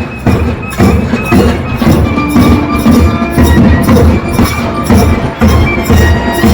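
Loud processional music: fast, dense drum strokes under held, steady wind-instrument tones.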